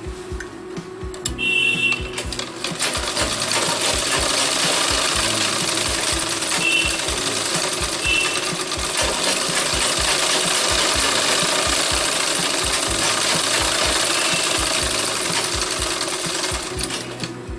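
Sewing machine running fast, stitching a long seam. It starts up about a second and a half in and slows to a stop near the end.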